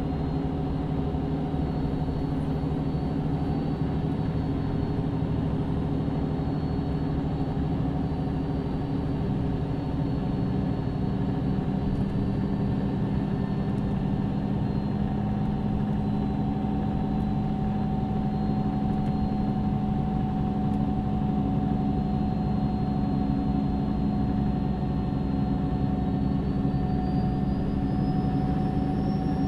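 MAN Lion's City NÜ 323 city bus heard from inside on a ride: the diesel engine runs steadily and shifts a little in pitch about a third of the way in, and a high whine rises in pitch near the end.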